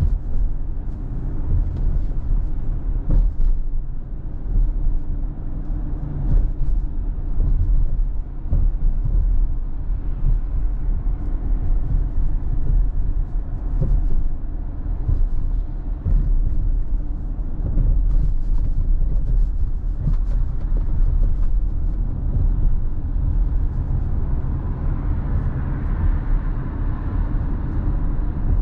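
Steady low rumble of a car being driven, engine and road noise, with a few light knocks. A hiss builds near the end.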